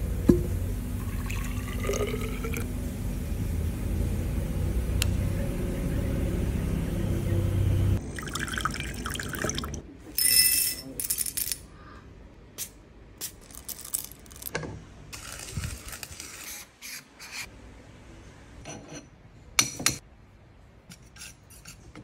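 Water rushing steadily through a DIY manual espresso machine as it is flushed. About ten seconds in, coffee beans clatter briefly into a ceramic dish, followed by scattered small clicks and taps.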